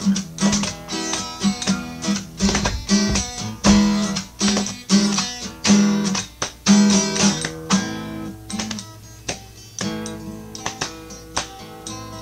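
Acoustic guitar strummed in a steady rhythm, then thinning to quieter, sparser notes about eight seconds in.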